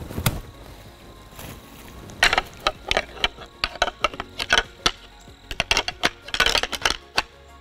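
Pair of deer antlers rattled together to imitate bucks sparring: a single clack near the start, then rapid bursts of clacking and grinding from about two seconds in, with a brief pause midway.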